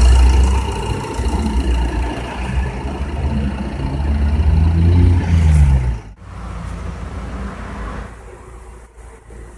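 Renault Espace engine running and revving up briefly, then switched off about six seconds in; a softer whir carries on for a couple of seconds after.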